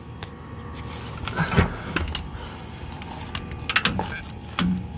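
Scattered metallic clinks and knocks of an air impact wrench and its socket being handled and positioned, with one heavier knock about a second and a half in and a few quick clicks near the end; the wrench is not run.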